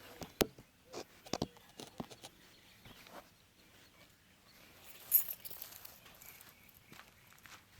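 Scattered light clicks and knocks, a few sharp ones in the first two seconds and a brief hiss about five seconds in; no engine running.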